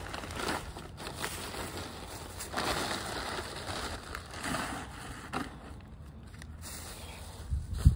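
Plastic bag rustling and crinkling as it is handled, loudest a few seconds in, with a low thump just before the end.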